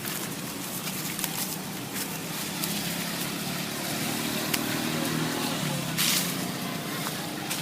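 Road traffic: a motor vehicle's engine hum swells in the middle, over steady outdoor background noise with scattered ticks, and a brief loud rustle comes about six seconds in.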